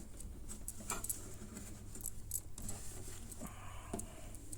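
Cloth rubbing over a cello's varnished wood as cleaner is worked in, with scattered light taps and clicks.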